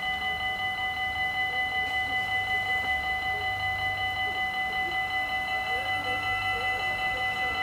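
Level-crossing warning bells ringing steadily in rapid, even pulses. Underneath them is the low rumble of a GTW electric multiple unit rolling past over the crossing.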